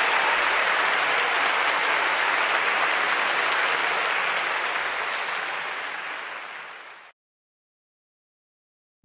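Audience applauding, dense and steady at first, then fading away and cutting off about seven seconds in, leaving dead silence for the last two seconds.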